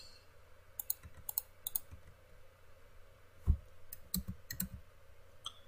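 Computer mouse button clicks: about ten sharp clicks spaced unevenly, some in quick pairs, with a duller knock about three and a half seconds in.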